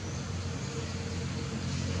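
Steady low engine drone of a motor vehicle under an even hiss.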